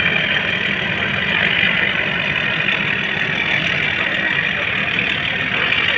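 Passenger ferry's engine running steadily while its propellers churn the water, a loud, even rumble with a rushing hiss over it.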